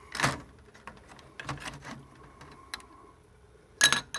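Sharp clicks and knocks of a server circuit board and its parts being handled, a few scattered strikes with the loudest pair near the end.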